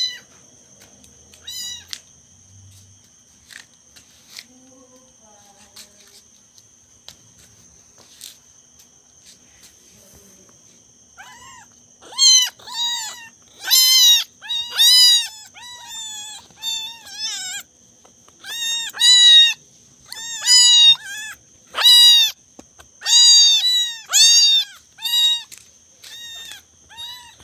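Kitten meowing over and over in loud, high-pitched cries that start about halfway through and come about once a second. Before that there are only a few faint clicks and a steady high whine.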